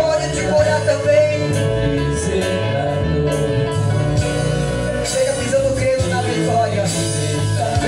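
Worship music with a band and singing, held chords over a steady bass.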